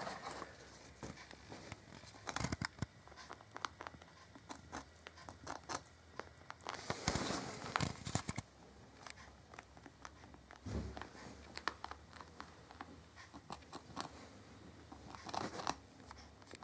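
A rabbit gnawing on a seed stick treat: faint, irregular little crunches and clicks, with a longer rustle about seven seconds in.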